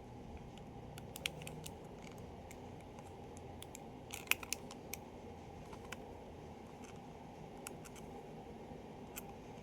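Faint scattered clicks and light scraping from small parts being handled as the screw inside a Parker Vector pen cap is turned back in, with a small cluster of sharper clicks about four seconds in.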